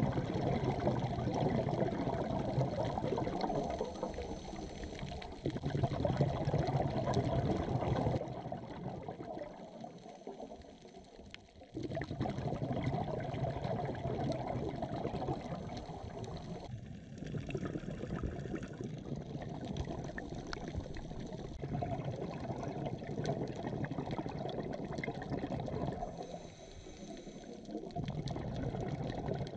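A scuba diver's breathing heard underwater: bursts of exhaled bubbles rushing from the regulator, swelling and fading in cycles of several seconds, with quieter pauses between breaths.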